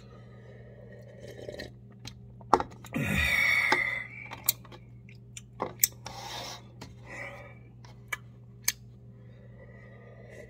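Close-up mouth sounds of a person eating cup ramen: chewing, lip smacks and sips of broth from the cup. There are scattered sharp clicks and a louder breathy burst about three seconds in.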